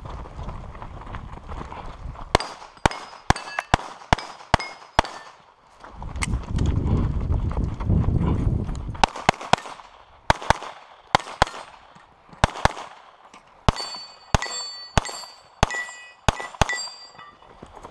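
Rapid semi-automatic pistol fire on a practical shooting stage: quick strings of shots in pairs and runs, with metal steel targets ringing after the hits, most often in the last few seconds. Between strings, from about six to nine seconds in, a low rumble runs while the shooter moves to the next position.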